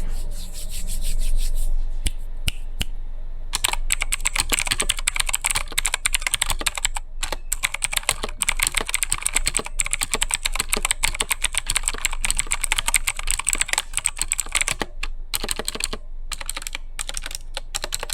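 Zypher Vodnik budget mechanical keyboard being typed on in a sound test: a few scattered key clicks, then fast, continuous typing from about three and a half seconds in, with a few short pauses near the end. The keys sound a bit messy.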